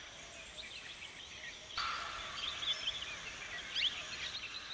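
Faint outdoor garden ambience: scattered short bird chirps over a low background hiss, which steps up slightly about two seconds in.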